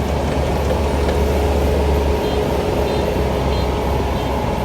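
Farm machinery engine running steadily at close range, a constant low rumble with a faint steady whine over it.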